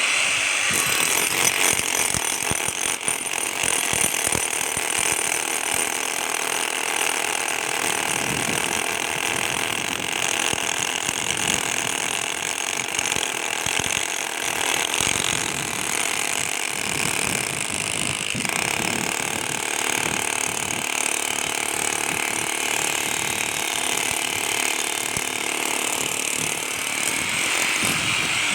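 A power tool working on a reinforced-concrete road, running steadily as a rapid, even run of impacts.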